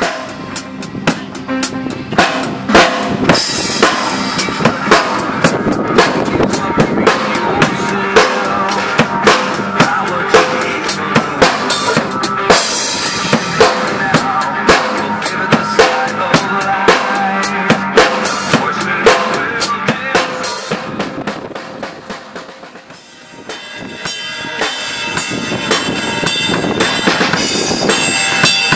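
A Pearl drum kit played live in a driving rock beat: bass drum, snare and ringing cymbals and toms, hits coming several times a second. About three-quarters of the way through the playing drops down briefly, then builds back up with cymbals ringing.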